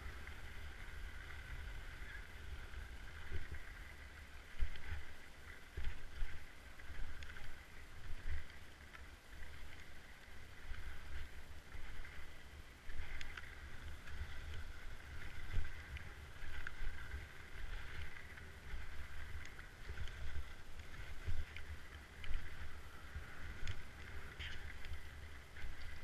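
Skis sliding and scraping over packed snow on a downhill run, the scraping swelling and fading every second or two, over a low wind rumble on the camera's microphone.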